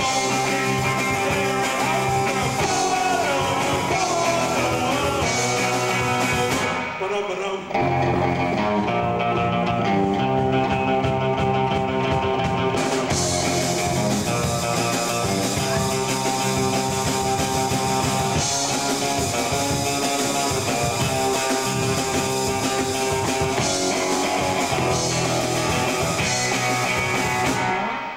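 Rock band playing: electric guitar and drums with a male voice singing, a brief break about seven seconds in, and the music stopping at the very end.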